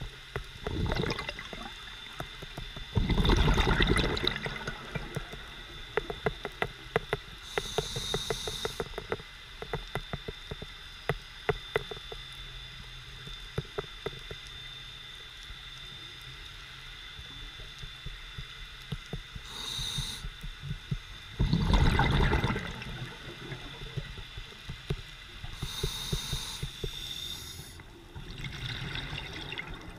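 Scuba diver breathing through a regulator underwater: a loud gush of exhaled bubbles about three seconds in and again around twenty-one seconds, with shorter hissing inhalations between. Constant fine clicking and crackling runs underneath.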